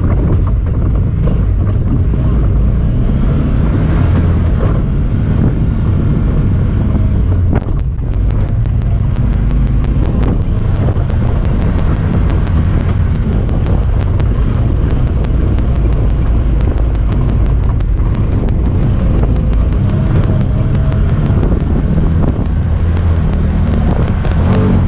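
Honda Talon 1000R side-by-side's parallel-twin engine running while driving off-road, with wind on the microphone. From about eight seconds in, a rapid run of fine clicking rides over the engine, a noise from the camera itself.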